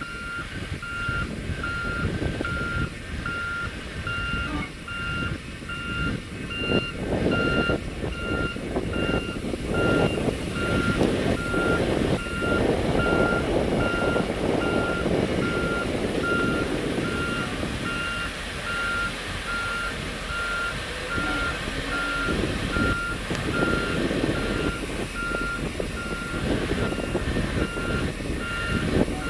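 A fire department brush truck's reversing alarm beeps at a steady, even pace as the truck backs slowly through an undercarriage washer. Under the beeps, water jetting from the washer pipe hisses and splashes against the tyres and underbody, loudest around the middle as the wheel passes through the spray.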